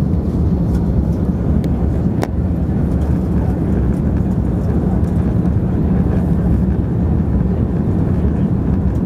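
Cabin noise of an Airbus A330-200 in its climb after takeoff: a steady, loud, low engine and airflow rumble heard from a window seat over the wing, with a single sharp click about two seconds in.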